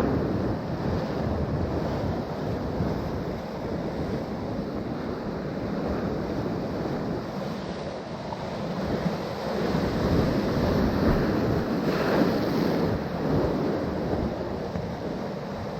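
Sea surf washing on the shore, with wind noise on the microphone; the surf swells louder for a few seconds in the second half.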